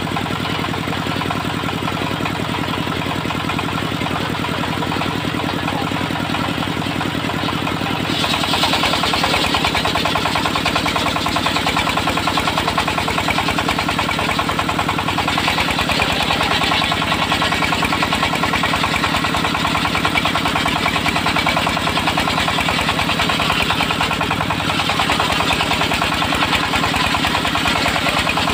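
Engine of a homemade circular sawmill running steadily, with a hiss that comes in and grows louder about eight seconds in, as the blade cuts into the log.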